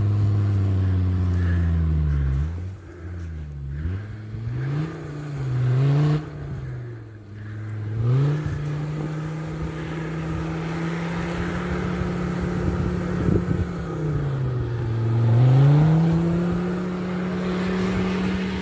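Off-road 4x4's engine revving hard as it ploughs through deep snow, its wheels throwing up snow. The revs fall and rise several times in quick succession, then hold high and steady, dipping once more and climbing again near the end.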